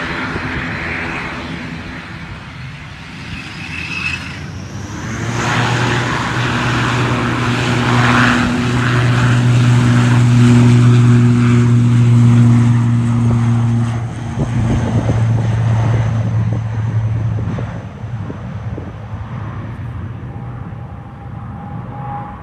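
ATR 72-600's twin turboprop engines at takeoff power during the takeoff roll: a steady low propeller drone with a higher whine above it. It swells about five seconds in, is loudest around the middle, then fades as the aircraft pulls away.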